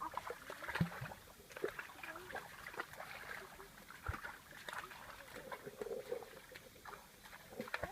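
Light water splashing and trickling, with scattered small knocks and faint voices.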